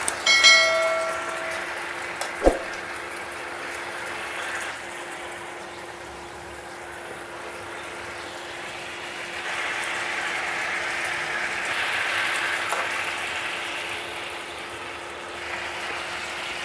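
Soy-calamansi sauce simmering around pork chops in a nonstick pan, a soft sizzling hiss that swells in the second half, while tongs lift the chops out. Near the start a clink rings briefly, and about two and a half seconds in there is a single sharp knock; a steady low hum runs underneath.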